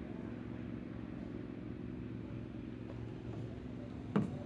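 A steady low engine drone, with a single sharp knock near the end.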